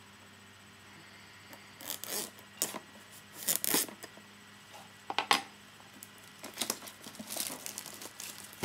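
Plastic shrink-wrap on a cardboard product box being slit and torn open: a series of short, sharp scratchy rips and scrapes, starting about two seconds in and coming on and off.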